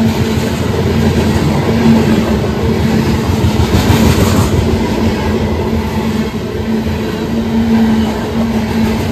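A Union Pacific grain train rolling past: a continuous rumble of wheels on rail, with a steady low hum underneath and a brief brighter hiss about four seconds in.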